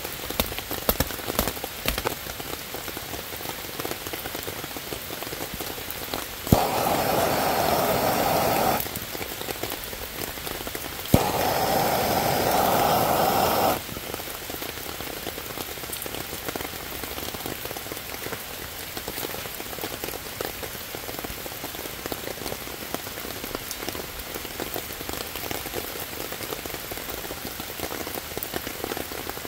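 Steady rain pattering on leaves and wet ground. Twice, a handheld gas torch clicks alight and hisses steadily for about two seconds as its flame is held to the wet tinder to light it.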